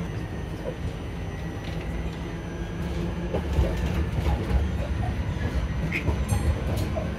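Oslo tram running along its track, heard from the front of the car: a steady low rumble of wheels on rail with scattered clicks and knocks, and a brief high squeal about six seconds in.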